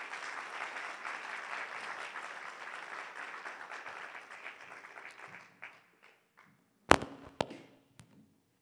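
Audience applause dying away over about five seconds, then two sharp knocks about half a second apart and a lighter click near the end.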